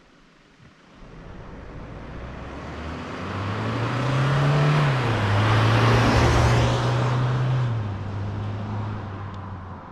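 Toyota HiLux Rogue ute's 2.8-litre turbo-diesel four-cylinder driving past under power. The engine note builds over several seconds and rises in pitch, drops in pitch about halfway through, and fades away near the end.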